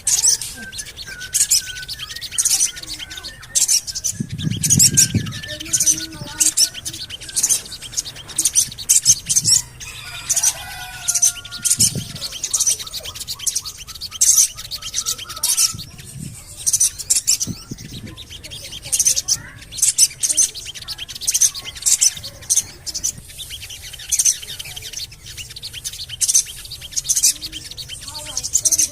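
Sogon bird calling with rapid, repeated high 'cuit cuit cuit' chirps, about two or three a second, mixed with a few lower whistled notes: a lure call used to prompt caged sogon birds to sing.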